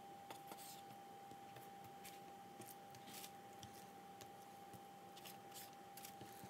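Kitchen knife slicing raw chicken breast into strips on a plastic cutting board: faint, scattered clicks and short scrapes as the blade meets the board.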